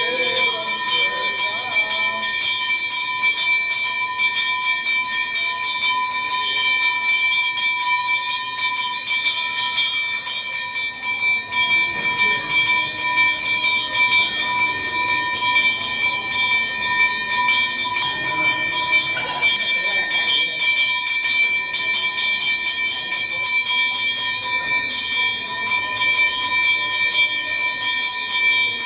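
A bell ringing without a break, its high ringing tones held steady.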